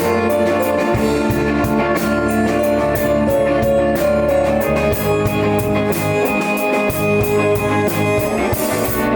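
Live prog rock band playing, with guitar to the fore, heard through a camera's built-in microphone.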